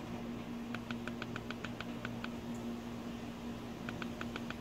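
Handheld AutoLink AL329 OBD2 scan tool giving short high beeps as its scroll button is pressed repeatedly through the live data list, about six a second. One quick run, a pause, then another run near the end, over a steady low hum.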